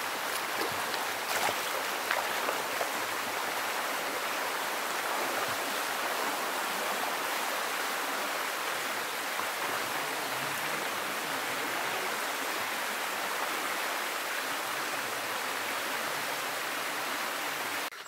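Shallow stream rushing steadily over rock slabs and small cascades, with a few splashes of feet wading through the water in the first seconds.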